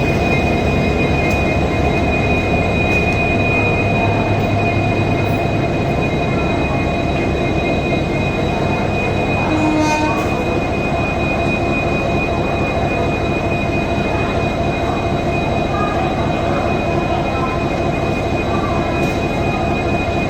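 EMD WDP4D diesel-electric locomotive's 16-cylinder two-stroke 710 engine idling, a steady low hum with a constant high whine over it.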